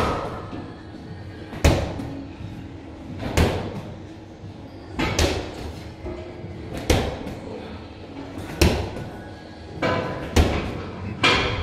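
Heavy gym weight equipment thudding down in a steady rhythm, about one knock every second and three-quarters, the last two closer together.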